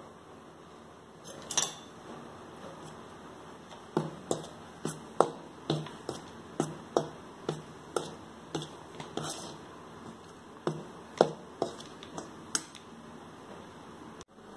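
Metal spoon knocking against a stainless steel bowl while stirring dry flour: one knock about a second and a half in, then a run of sharp clinks at roughly two a second through most of the rest.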